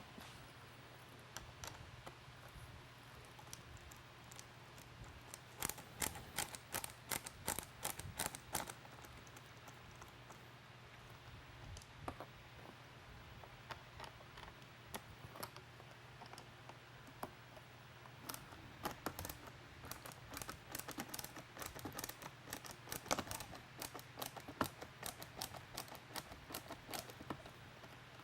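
Faint, irregular clicking and ticking of a screwdriver backing small screws out of the sides of an LED deck light, in two runs of quick clicks, over a low steady hum.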